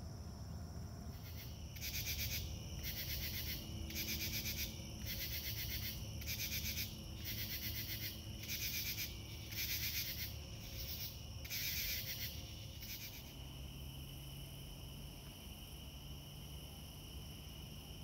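Dusk insect chorus: a steady high cricket trill, with a louder pulsed insect call repeating about once a second that stops near the end.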